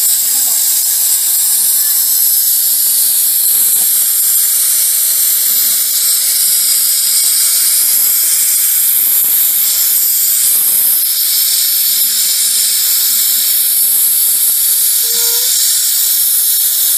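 Handheld steam cleaner's nozzle jetting steam: a loud, steady hiss that does not let up.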